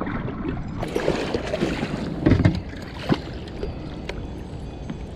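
Strong wind rumbling on the microphone, with water splashing and knocks against a kayak. The loudest thump comes a little past two seconds in, and a sharp knock about three seconds in.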